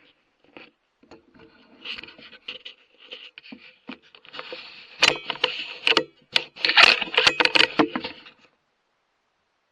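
Close handling noise: a run of sharp clicks, knocks and rubbing scrapes, loudest and busiest from about five to eight seconds in, then cutting off abruptly to silence.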